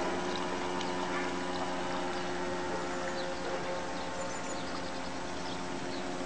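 Model cabin cruiser's 12-volt, water-cooled 850 electric motor whining at a steady pitch over rushing water as the hull runs; the whine fades about halfway through.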